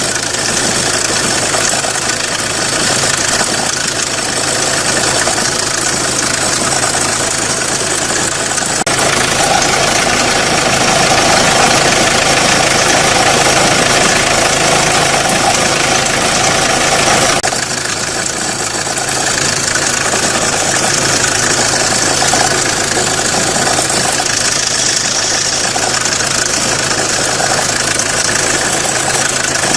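Renault Clio 1.5 dCi four-cylinder diesel engine idling with a shaking, knocking noise that comes only at idle; the owner suspects the belt tensioner. The sound grows louder about nine seconds in and drops back abruptly about eight seconds later.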